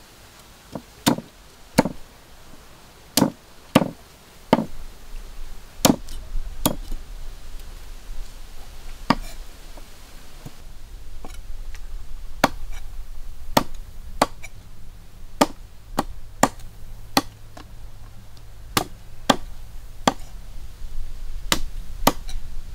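Heavy meat cleaver chopping a raw duck into pieces on a thick wooden chopping block: sharp, separate chops at an uneven pace, about one a second.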